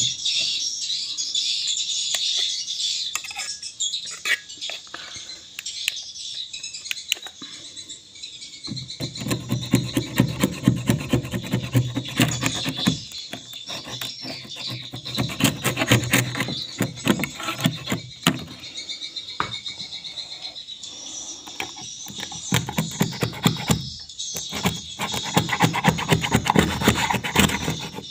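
Rasping scrapes and quick clicks of edible swiftlet nests being pried off the rafters with a tool, heaviest from about a third of the way in, with swiftlets chirping steadily behind.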